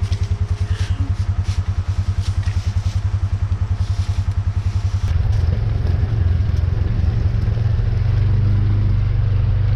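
Trail buggy's engine idling with an even, rapid pulse. About halfway through it picks up and runs steadier and louder, as when the buggy moves off.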